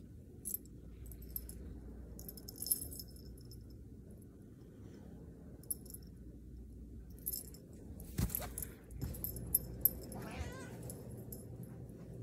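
Domestic cat meowing once, a drawn-out, wavering complaining meow, about ten seconds in. Before it come light rustling and handling noises and a sharp knock about eight seconds in.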